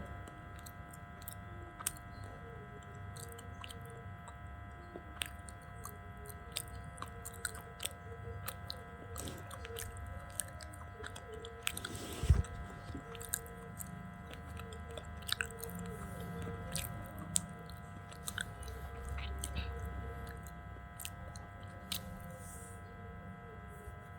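Someone chewing and crunching pieces of slate, with irregular sharp cracks and one loud crunch about twelve seconds in, over a steady background hum.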